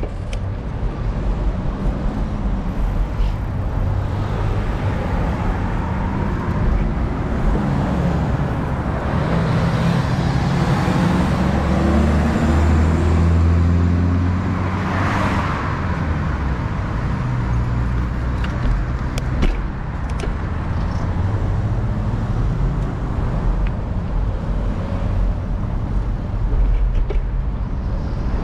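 City road traffic at a busy intersection: a steady rumble of car engines, with a low engine hum swelling about a third of the way in and a vehicle passing by about halfway through.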